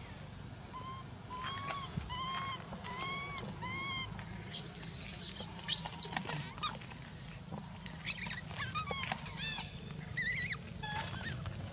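Infant macaque crying in distress while its mother holds and drags it by the tail. Short arched squeals come about every half second, then a harsh screech about halfway through, then higher, wavering cries near the end.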